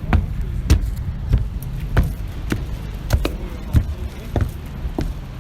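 Footsteps walking at a steady pace on a boat's boarding gangway, about three steps every two seconds, over a steady low rumble.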